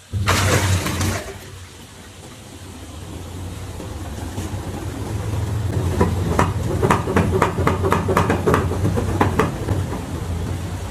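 Washing machine running with a steady low hum that builds, and a fast series of knocks and rattles about six seconds in: the crazy noise problem that alarmed the owner.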